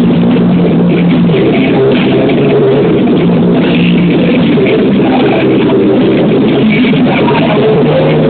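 Live rock band playing through the venue's PA, electric guitars and bass holding chords, loud and steady.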